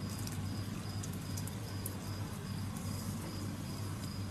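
Crickets chirping at night: a high, thin trill in short repeated pulses, over a low steady hum.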